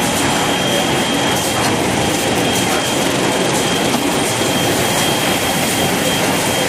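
Toilet-paper and kitchen-towel roll converting and wrapping machinery running: a steady, dense mechanical clatter of conveyors and drives, with a thin, steady high whine.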